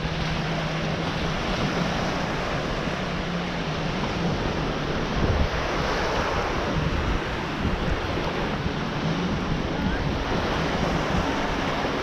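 Small ocean waves washing onto a sandy beach, with wind rumbling on the microphone. A faint steady low hum runs underneath.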